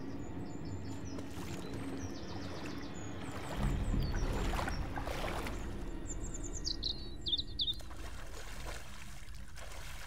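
River water swishing and splashing as a person wades through it, loudest around four to five seconds in, while birds chirp in quick trills of short falling notes. A low steady drone runs underneath.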